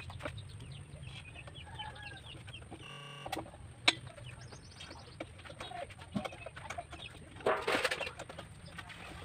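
Chickens clucking in short calls, with a few sharp clicks as screws and a screwdriver are handled on a plywood chair seat. A louder, rougher stretch comes near the end.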